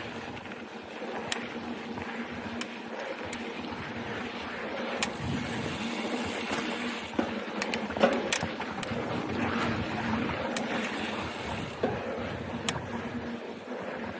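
Mountain bike riding fast down a dirt trail: tyres rolling over dirt and rock with wind rushing over the microphone, and scattered sharp clicks and rattles from the bike, the loudest about eight seconds in.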